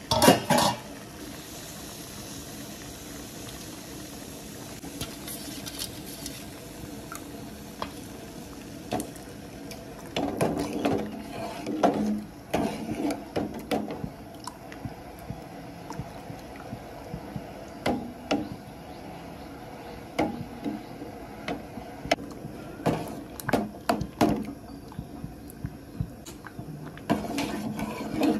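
Water boiling in a steel handi, with a metal clank at the very start. From about ten seconds in, ragi slurry is poured in and stirred with a ladle that knocks and scrapes irregularly against the steel pot.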